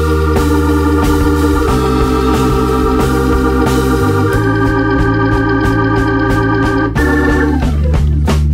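Background music: organ playing held chords, moving to a new chord about every two to three seconds and fading out near the end.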